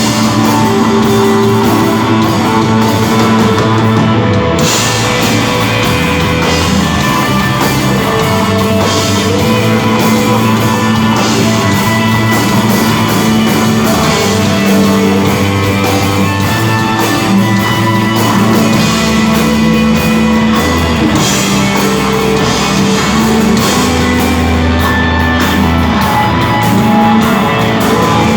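A rock band playing live and loud without a break: electric guitar, bass guitar and drum kit in an instrumental desert-rock piece, with a bass line that steps from note to note under a steady wash of cymbals.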